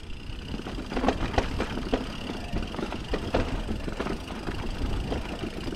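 Electric mountain bike riding over a rocky trail: a steady low wind rumble on the microphone with frequent rattles and clicks from the bike as it rolls over rocks.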